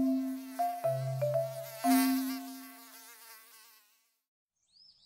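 Mosquito buzz, a thin whine wavering in pitch, over a few light plucked music notes with a low bass; both fade out about four seconds in.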